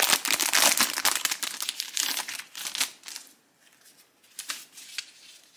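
Thin clear plastic bag crinkling as it is pulled open and leaflets are taken out, dense for about three seconds and then dying away, followed by a few faint rustles of paper.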